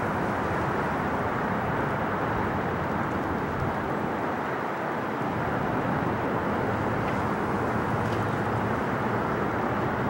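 Steady, distant jet roar of an Airbus A330 climbing away after takeoff, mixed with wind noise.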